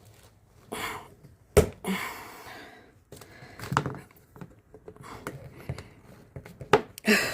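Cast epoxy resin puzzle pieces being handled and fitted together: soft rustling and scraping with a few sharp knocks, the sharpest about a second and a half in and another near the end.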